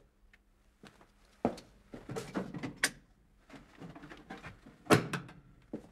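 Scattered soft knocks, clicks and rustling of objects being handled in a small room, such as a letter case and papers being fetched and passed over, with a sharper knock about five seconds in.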